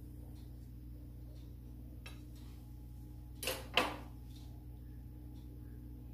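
Kitchen knife knocking twice in quick succession, a light clatter about three and a half seconds in as it is lifted out of the cut cake and put down; a steady low hum runs underneath.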